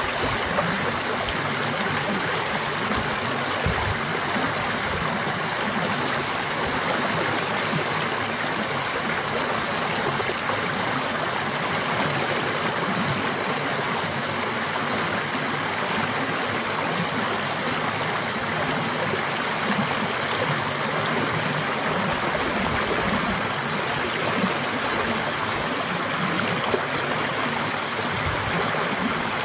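Shallow stream rushing over low rock ledges and around boulders in small cascades: a steady rush of water that does not change.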